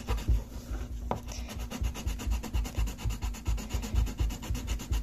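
Coloring in on paper with a hand-held pencil: a steady run of quick, even back-and-forth rubbing strokes, several a second, each with a dull knock on the tabletop under the paper. There is one sharper click about a second in.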